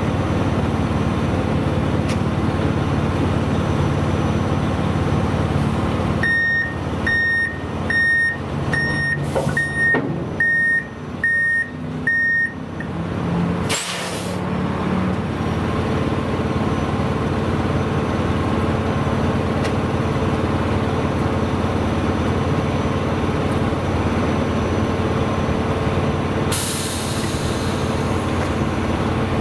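Mack CXU613 tractor's diesel engine running while it backs up to re-hook an RGN trailer's gooseneck, with a reversing beeper sounding about eight times in a row. A sharp burst of air-brake hiss follows about halfway through, and a longer hiss of air comes near the end.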